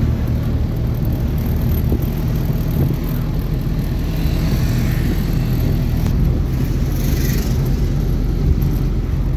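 Suzuki van driving on a city road, heard from inside the cabin: a steady low engine drone with tyre and road noise.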